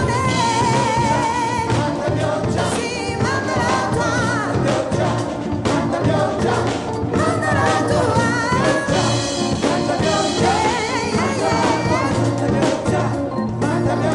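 A live gospel choir and soloists singing with a band, with drum kit and cymbals playing under the voices.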